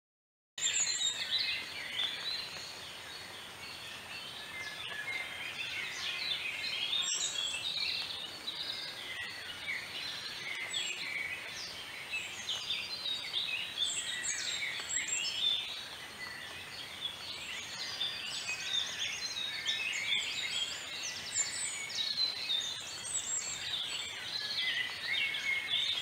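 A chorus of many small birds calling and singing at once: a dense, overlapping mix of short chirps, whistles and trills.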